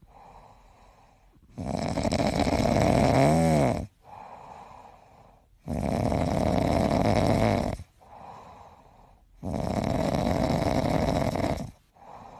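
Snoring in slow, even cycles: three long, loud breaths about four seconds apart, each followed by a much quieter breath. A brief wavering whistle rides on the first loud breath.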